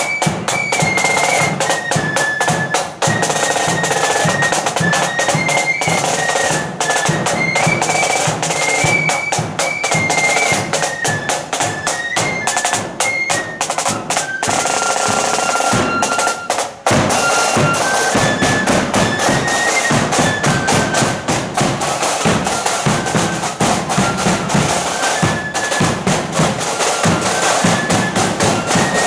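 Marching flute band playing: flutes carry a tune over fast snare drumming and a bass drum beat.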